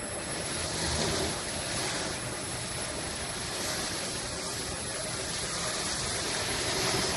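Industrial sanding and polishing machine running steadily, a continuous mechanical hum with a grinding hiss that swells and fades every second or two.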